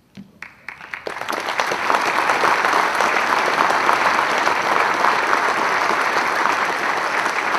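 Audience applauding: a few scattered claps in the first second, then building quickly into full, steady applause.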